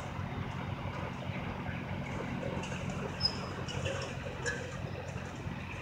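John Deere 430 tractor's two-cylinder engine running steadily, heard from a distance, with a few short high chirps over it.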